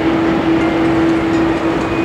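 Jet aircraft noise from an Airbus A330-200 taxiing at idle thrust: a loud, steady rush with a constant droning tone.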